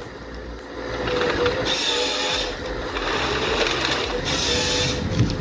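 Wood-processing machinery running with a steady whine, joined by two bursts of high hiss, about two seconds in and again about four seconds in.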